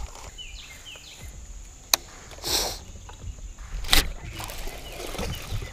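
Rod and boat handling noise as an angler hooks a fish: a sharp click, a brief swish, then a loud knock about four seconds in. A bird chirps a few times near the start.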